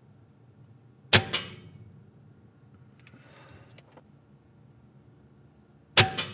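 Two moderated shots from an Evanix REX-P .357 PCP air rifle fitted with the long DonnyFL Emperor moderator, about five seconds apart. Each is a sudden sharp report that dies away quickly, followed a fraction of a second later by a smaller knock. Between the shots there is soft handling noise ending in a click.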